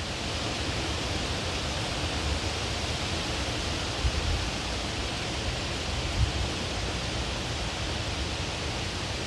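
Steady, even hiss with a low rumble underneath and two faint bumps, about four and six seconds in.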